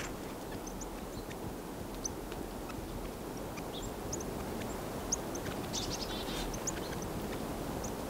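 Northern cardinals giving scattered short, sharp, high chip calls, with a denser run of calls about six seconds in, over a steady low rush of background noise.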